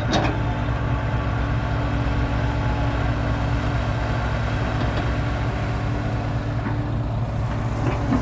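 Dump truck engine running steadily, a level low drone with no change in pitch.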